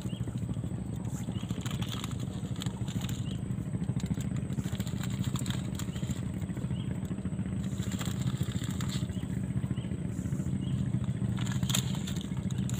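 A small engine running steadily at a constant speed, a low even hum with a fast pulse.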